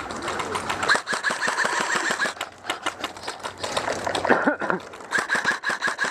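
Airsoft electric gun (AEG) firing full-auto: two long bursts of rapid clicking over the gearbox whine, the first about a second in and lasting about a second and a half, the second starting near the end.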